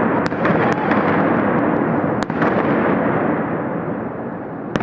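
Dense, continuous barrage of New Year fireworks and firecrackers going off, with several sharp cracks standing out above the crackle, one of them near the end.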